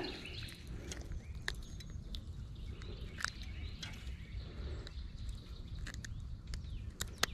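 Wind rumbling on the microphone with faint bird chirps, and scattered small clicks from hands unhooking a jig from a crappie, the sharpest click near the end.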